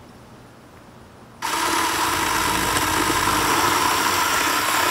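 Ryobi CS1800 18-volt cordless electric chainsaw switching on about a second and a half in and running steadily at full speed, its chain cutting into the top of a tree stump.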